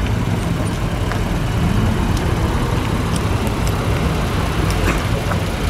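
A car engine running low and steady as a slammed sedan rolls slowly at walking pace.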